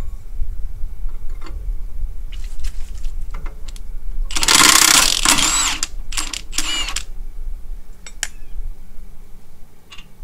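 Impact wrench run in three short bursts, the first the longest at over a second and the others following within two seconds, with a whine rising in pitch as it spins, taking the nuts off a Ford 9N tractor's front bolts. Sharp clicks of tools and metal handled around it.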